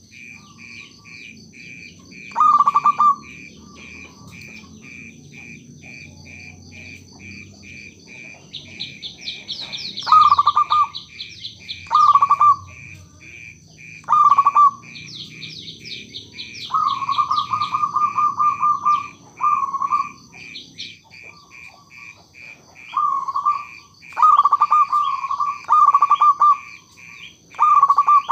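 Zebra dove (perkutut) cooing: about ten short, rapid staccato coo phrases with gaps between them, one phrase held longer about two thirds of the way through. Behind it runs a steady train of short high ticks, about two or three a second, and twice a burst of quick high chirping.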